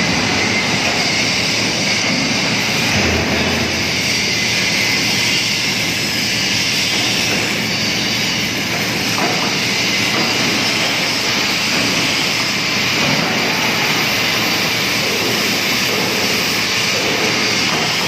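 Steady, loud machinery noise in a fabrication workshop: an even hiss over a low rumble, with no clear tone or rhythm.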